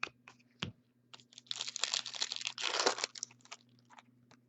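Trading-card pack wrapper being torn open and crinkled by hand, a dense crackling rustle for about a second and a half, after a couple of light clicks.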